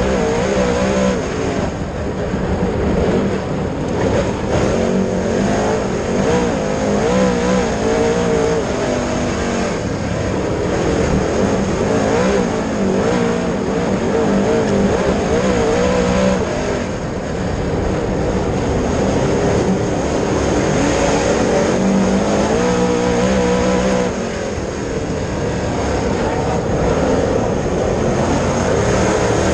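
Dirt late model race car's V8 engine running hard at racing speed, its pitch rising and falling again and again as it is throttled through the turns.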